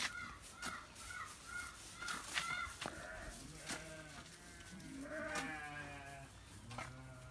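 Santa Inês sheep bleating: several wavering bleats from about three seconds in, the longest near the middle. Before them, over the first two seconds or so, there is a quick run of short high chirps.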